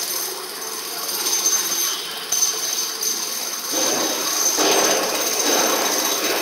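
Forge-shop machinery noise around a hydraulic forging hammer: a steady din with a constant high whine and a sharp click a little over two seconds in. The noise swells louder from about four seconds in.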